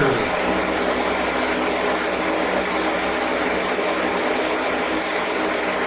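Household electric fan running steadily: a constant rush of air with a low, even motor hum.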